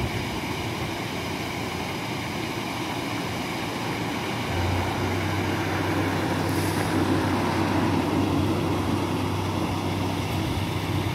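Water gushing through the open upper gate paddles and cascading into a canal lock chamber as the lock fills. A low engine hum joins about four and a half seconds in.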